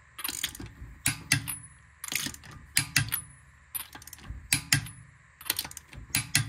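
Ratcheting torque wrench tightening lug nuts: short bursts of ratchet clicks, roughly once a second, as the handle is worked back and forth.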